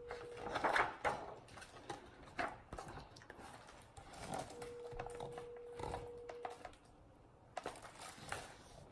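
Picture book being handled and its pages shifted: scattered soft rustles and light knocks, loudest about a second in. A faint steady tone sounds briefly at the start and again for about two seconds midway.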